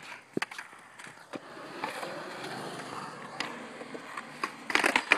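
Skateboard wheels rolling on concrete, with a few sharp clacks of the board hitting the ground and a rapid run of loud clacks near the end.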